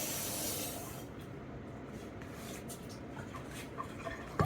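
Water poured into a glass bowl of rice, a soft hiss that fades out about a second in. A few light clicks and a knock follow near the end.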